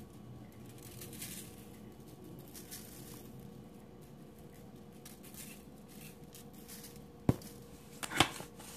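Onion powder being shaken from a spice container over raw chicken drumsticks in a foil pan: faint soft taps and rustles, then two sharp clicks near the end, the second louder.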